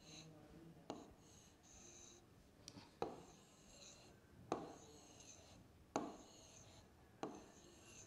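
Marker pen drawing on a glass lightboard: faint squeaky strokes, with a sharp tap each time the tip meets the glass, five times about a second and a half apart.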